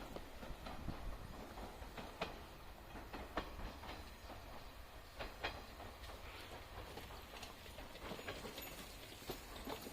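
Train passing at a distance: a low rumble with irregular clicks and knocks from the wheels on the track.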